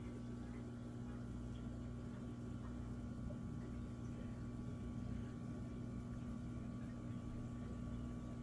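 Aquarium air pump humming steadily, with faint bubbling from the air line in the tank.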